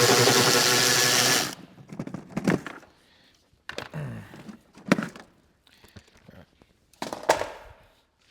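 A cordless power tool runs steadily for about a second and a half, then stops. A few sharp metal clinks and clanks of tools and parts follow.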